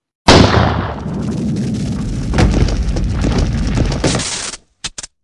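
Sound effect of a brick wall blasting apart: a sudden loud boom, then a few seconds of rumbling, crackling debris that cuts off, followed by two short clicks near the end.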